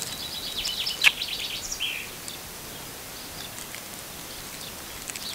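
Small plastic bag of T5 LED bulbs crinkling as it is handled, with a sharp tick about a second in, then quiet background with a brief chirp.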